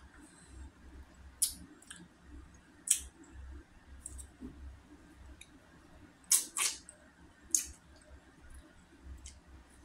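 Eating sounds of someone working on salmon head skin and flesh: sharp wet mouth clicks and smacks, a few spaced out, with a close pair about six seconds in.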